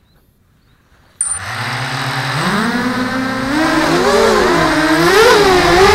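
Y6 mini hexacopter's brushless motors starting suddenly about a second in, then spinning up, their whine rising in pitch and wavering as the copter lifts off. Several motor tones can be heard crossing each other.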